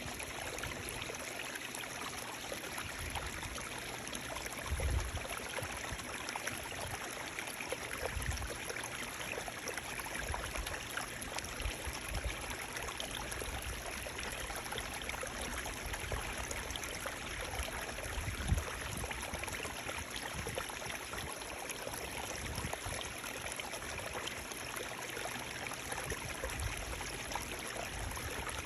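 Running water: a stream flowing with a steady, even rush, with occasional low rumbles.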